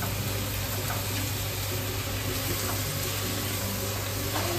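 Food sizzling steadily in a wok over a gas flame while it is stir-fried, with a few light clicks of the metal utensil against the pan.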